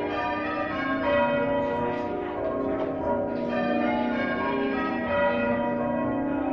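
Church bells rung by a band of bell ringers, one bell striking after another in quick succession, their tones overlapping and ringing on.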